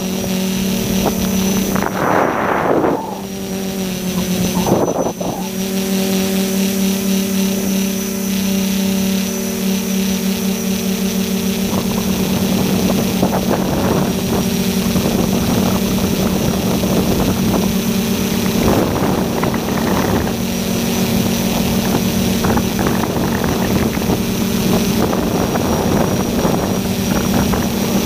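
Tricopter's three SunnySky 1400KV brushless motors and Graupner propellers buzzing steadily in flight, heard from the onboard camera. A few brief louder rushes come in the first five seconds.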